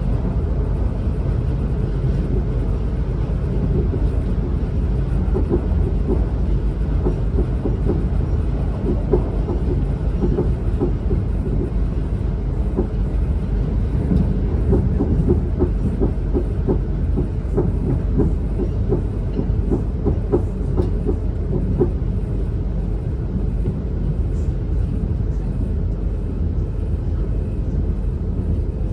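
A Class 444 Siemens Desiro electric multiple unit running at speed, heard from inside the carriage: a steady low rumble of wheels on rail, with a long run of quick rattling clicks through the middle.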